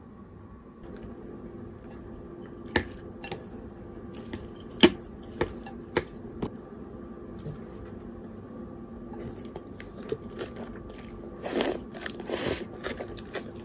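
Chopsticks tossing saucy konnyaku noodles with shredded cabbage and bean sprouts on a ceramic plate, giving scattered sharp clicks and a wet, squelchy rustle near the end, over a faint steady hum.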